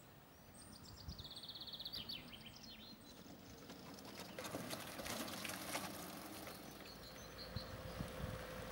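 Outdoor ambience with small birds singing: a fast trill about a second in and scattered chirps. A patch of crackling clicks comes in the middle, and a faint steady hum near the end.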